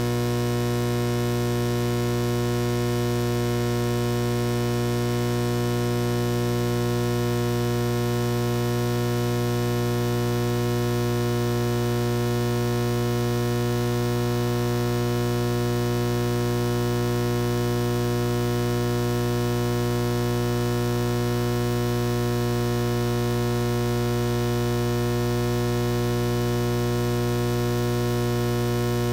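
Steady electrical mains hum: a low buzz with many evenly spaced overtones, unchanging.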